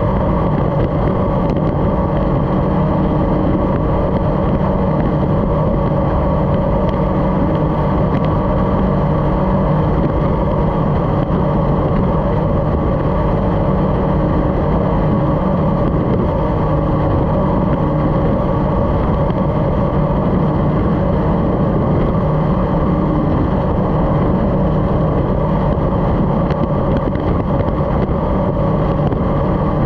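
Racing powerboat's engine running at a steady pitch at racing speed, heard from on board.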